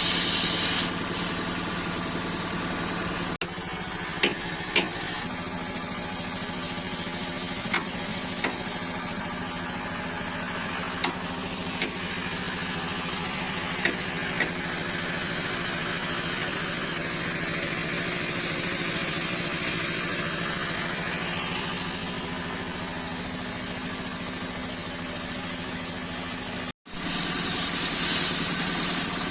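Engine running steadily at idle, with a hiss over it and eight sharp knocks, mostly in pairs, in the first half; the hiss is louder at the start and near the end.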